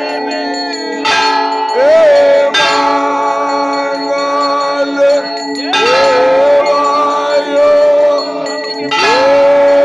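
Temple bells ringing continuously during an aarti, with repeated strikes. Three times a tone rises and then holds steady for about a second.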